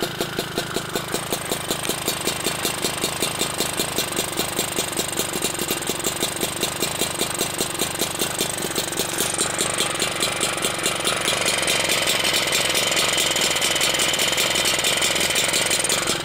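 Puch E50 moped's 50cc single-cylinder two-stroke engine, with an expansion chamber, idling very slowly with distinct, even beats about five a second while its idle screw is set as low as it will go. From about ten seconds in it gets louder and its beats blur together.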